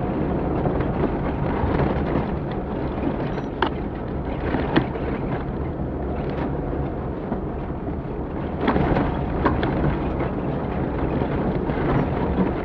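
Off-road rally vehicle driving a rough stage: a steady rumble of the engine and tyres on loose ground, with a few sharp knocks and rattles from the bumpy track.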